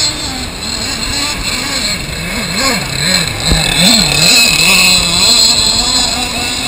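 Small combustion engine of a radio-controlled boat running at high revs, a continuous buzzing whine whose pitch swings up and down several times in the middle as it is throttled or turns.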